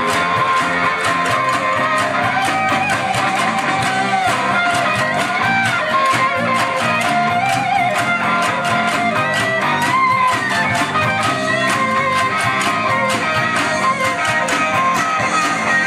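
Live rock band playing: electric guitar and a lead line over a steady beat, with many handheld cowbells struck in time by the crowd.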